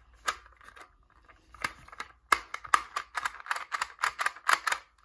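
Sengso magnetic clock puzzle clicking as its dials are turned by hand: sharp separate clicks, a few at first, then many in quick succession from about two seconds in.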